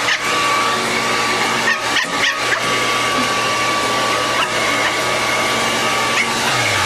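Shih Tzu puppy giving short barks at a running blow dryer, whose steady whir fills the background. The barks come in a quick cluster about two seconds in, with single ones later.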